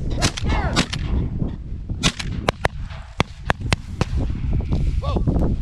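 Shotgun shots: a string of about ten sharp cracks, bunched in quick succession between about two and four seconds in.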